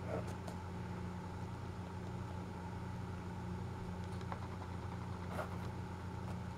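Steady low mechanical hum of a running motor, even throughout, with a few faint clicks of plastic toy track being handled.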